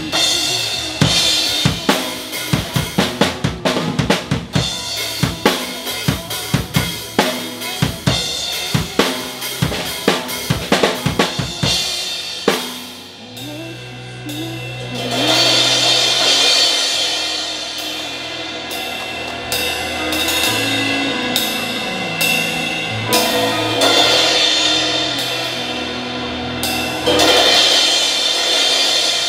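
Acoustic drum kit with Zildjian cymbals played live over a recorded pop-song backing track. A steady, driving beat of snare and bass drum fills the first twelve seconds. After that the playing turns sparser, with cymbal crashes over the sustained backing music.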